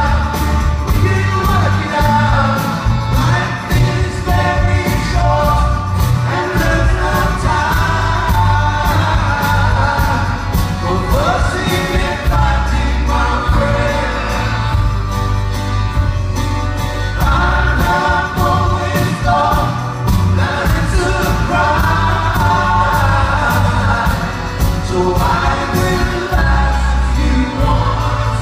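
Live band playing a song: a man singing lead over acoustic guitar, electric guitar, bass and drums, with a steady beat about twice a second.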